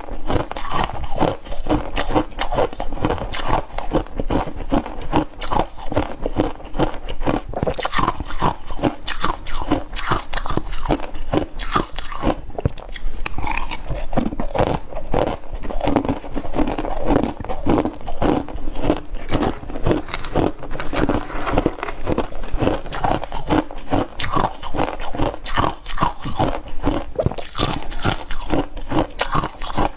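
Close-miked chewing of freezer frost and ice: a dense, continuous run of crisp crunches.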